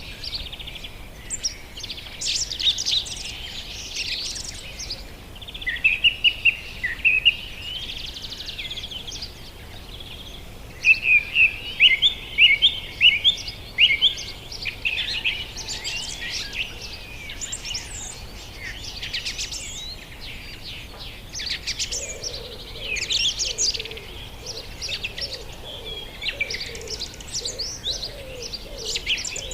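Small pet parrots chirping and calling, with a fast run of rapid repeated chirps in the middle. A lower warbling sound joins in over the last several seconds.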